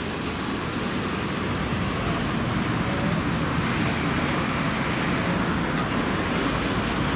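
Road traffic on a city street: cars driving past, a steady wash of engine and tyre noise.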